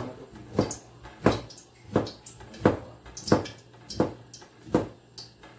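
Kitchen knife slicing through a block of tempeh and knocking on the cutting board with each cut: a steady rhythm of about eight knocks, one every two-thirds of a second.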